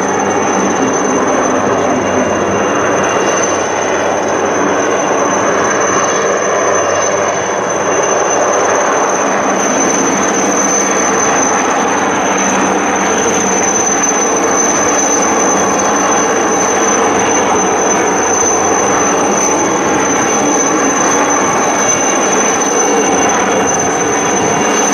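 Sud Aviation SE 3160 Alouette III helicopter hovering and flying low: the steady high whine of its Turbomeca Artouste turboshaft over dense, even rotor and engine noise.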